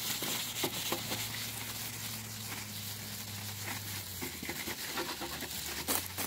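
Paper towel and a plastic bag over the hand rubbing and crinkling against a plastic truck headlight lens, wiping off WD-40, with irregular scrapes and a sharp click near the end. A steady low hum runs underneath.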